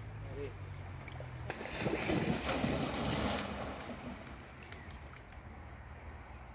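Wind gusting over the microphone: a rushing swell that builds about a second and a half in and dies away after about two seconds, over a steady low rumble.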